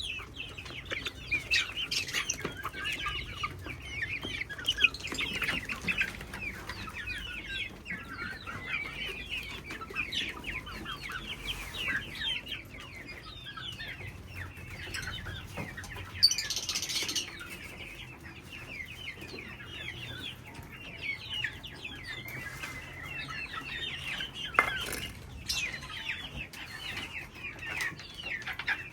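A colony of parrots in an aviary chattering and calling continuously, many short overlapping chirps and squawks, with a harsher, louder burst about sixteen seconds in.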